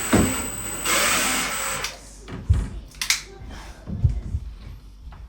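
Hands-on work noises: a rasping, hissing noise about a second long near the start, then a few separate knocks and thumps.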